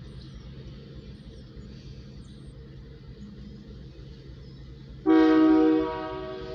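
Freight locomotive's horn blown as a horn salute, starting suddenly about five seconds in: loudest for under a second, then held more softly. Before it, only a low steady rumble.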